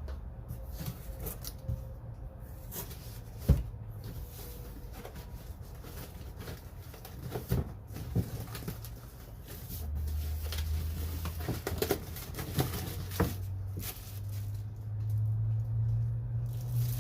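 Tool-kit packaging being handled during an unboxing: scattered knocks and clicks of cardboard and plastic, the sharpest about three and a half seconds in. A low steady hum comes in about ten seconds in.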